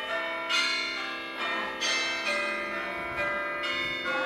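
iPhone timer alert tone: a bell-like chime struck three times, about every 1.3 seconds, each strike ringing out with many overtones into the next.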